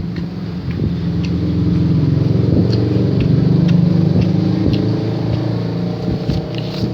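A motor vehicle's engine running close by, swelling to its loudest about midway and then easing off, with a few small clicks over it.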